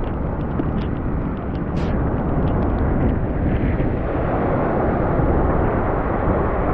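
Strong wind buffeting the microphone over the noise of heavy surf, as a rumbling roar that grows louder about three seconds in.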